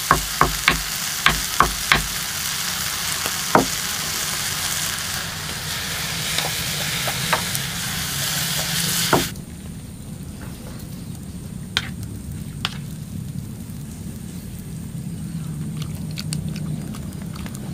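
Water spinach stir-frying in a pan over a wood fire: a steady sizzle, with a quick run of sharp taps in the first two seconds. The sizzle cuts off abruptly about nine seconds in, leaving a quieter low rumble with a few faint clicks.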